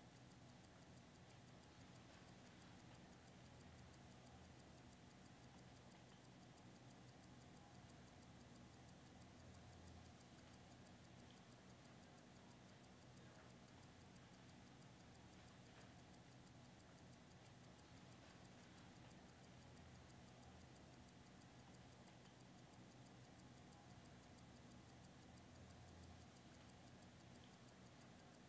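Faint clock ticking, fast and even, over a low room hum.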